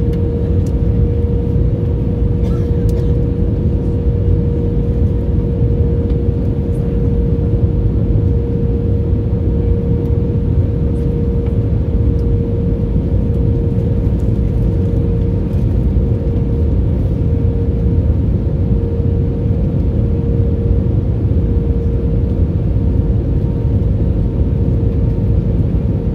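Airliner cabin noise in flight: a steady rumble of engines and airflow, with a constant mid-pitched hum running through it.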